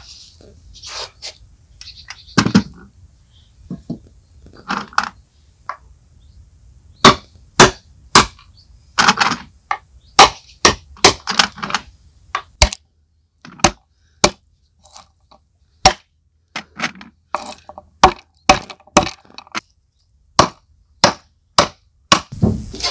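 A run of irregular sharp knocks and cracks, one or two a second, from kitchen work on a hard surface. They are soft and dull at first and become loud and sharp about a third of the way in.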